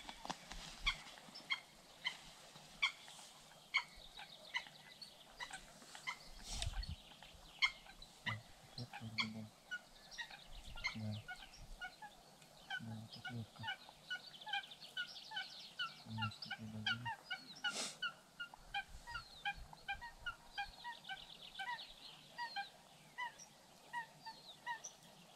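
A chorus of many short, repeated animal calls, overlapping, thickest in the second half, with a few soft low knocks and a sharp click about two-thirds of the way through.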